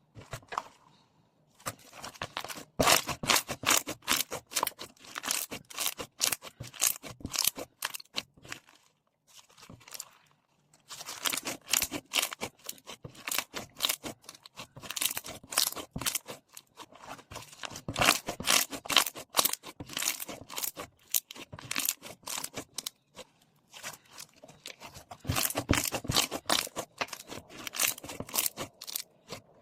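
Foam slime being squeezed and pressed by hand, giving rapid crackling pops and clicks in three long bouts with short pauses between.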